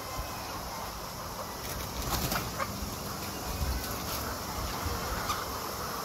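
Caged laying hens clucking and rustling over a steady background hiss, with a few sharp clicks about two seconds in.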